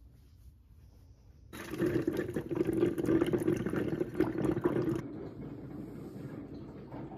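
Ninja Coffee Bar machine pumping hot water and pouring it into a ceramic mug, starting about a second and a half in, with a steady hum under the splashing stream. It drops to a quieter, steady pour about five seconds in.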